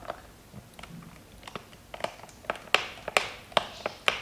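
Small screwdriver working the screws of a laptop's plastic bottom cover: an irregular string of sharp clicks and short scrapes, coming faster in the second half.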